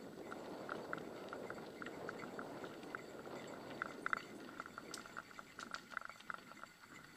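Bicycle rolling over a dirt trail: a steady rumble of tyres on packed earth with frequent light, irregular rattling ticks as it runs over bumps.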